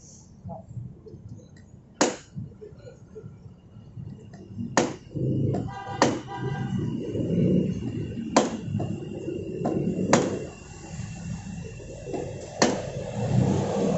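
Claw hammer striking a scooter crash guard through a rag, driving it into the floorboard mounting: about six sharp blows, roughly two seconds apart.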